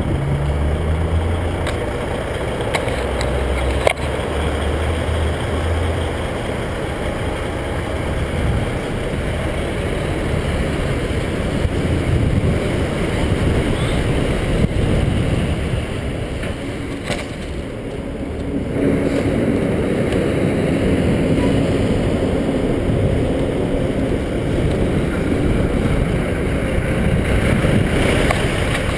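Motorcycle riding at low speed, its engine running under a steady wind rumble on the microphone. The engine eases off briefly about two-thirds of the way through, then picks up again with a steady hum.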